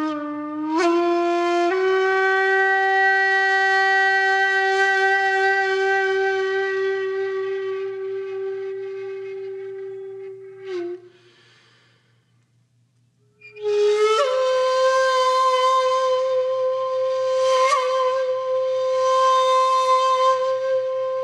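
Music: long held notes on a wind instrument. One note sustained for about ten seconds, stepping slightly higher about a second in, fades out. After about two seconds of quiet, a second, higher held note begins and wavers near the end.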